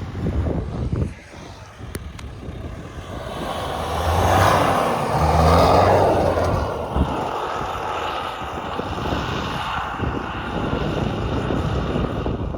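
Mitsubishi L200 pickup engine working through deep snow, growing louder to a peak about four to six seconds in, then easing off.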